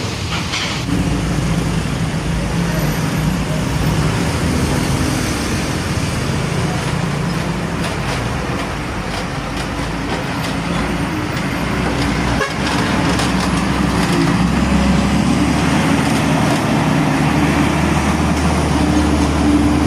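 Heavy diesel trucks running loudly as they pass on a busy road, with a vehicle horn tooting.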